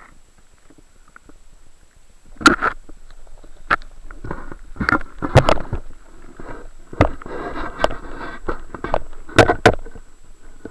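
Water noise heard through a camera held under water: irregular sharp knocks and thumps, about eight of them, with swells of muffled sloshing noise between them, busiest from a little past the middle.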